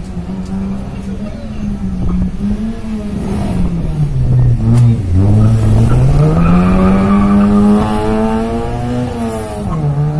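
Car engine revving hard during a driving-skill run. Its pitch sinks about four seconds in, then climbs back up and is loudest as the car comes close, dropping again near the end.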